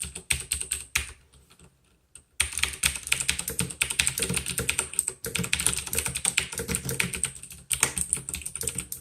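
Typing on a Turtle Beach Impact 500 mechanical keyboard with clicky Cherry MX Blue switches. There are a few separate keystrokes, a short pause, then fast, continuous typing from about two seconds in.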